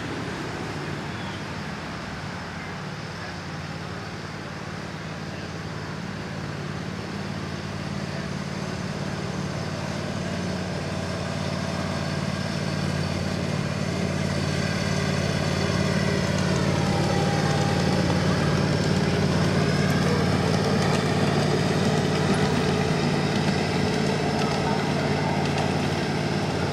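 Small engine of a miniature diesel-outline ride-on locomotive running as the train draws near and passes, growing steadily louder, its pitch dipping and then rising again about two-thirds of the way through.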